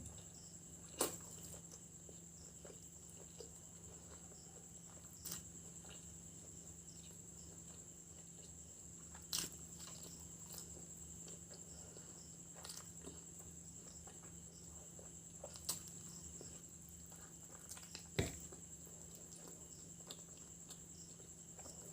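A person eating and chewing, with a handful of short sharp mouth smacks or clicks spread out over the stretch, the sharpest about eighteen seconds in, over a steady faint hum.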